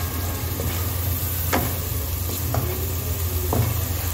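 Thick masala paste sizzling in oil in a non-stick pan while a wooden spatula stirs and scrapes it, with a scraping stroke about once a second. This is the masala being roasted (bhuna). A steady low hum runs underneath.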